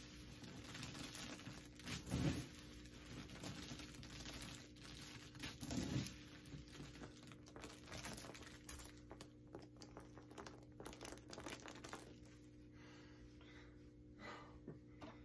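Loose popped popcorn being scooped up by hand, a dense crinkly rustling with small crunches, with two duller thumps about 2 and 6 seconds in. The rustling thins out in the last few seconds.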